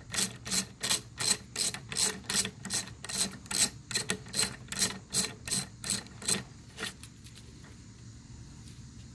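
Socket ratchet clicking steadily, about four clicks a second, as it backs out the screw of a handgun sight pusher. The clicks grow fainter and stop about seven seconds in.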